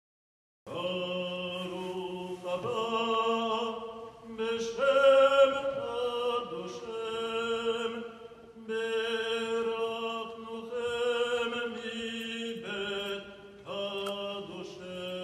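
Slow liturgical chant sung in long held notes, in phrases of about two seconds with short breaks between, starting under a second in.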